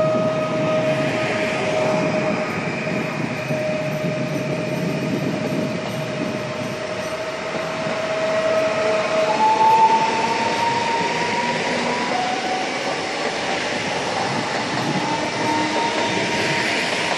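Pesa Elf electric multiple unit, two sets coupled, passing close by on the rails. The running noise is steady, with a whine that climbs slowly in pitch and steps up to a higher whine about halfway through.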